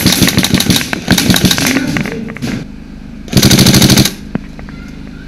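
Airsoft rifles firing rapid full-auto bursts: a long stretch of fire through the first two and a half seconds, then one loud burst of under a second about three seconds in.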